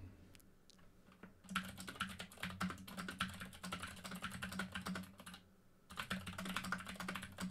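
Fast typing on an Epomaker GK96S mechanical keyboard with long-travel switches: a quick run of key clicks starting about a second and a half in, a short pause a little past five seconds, then more typing.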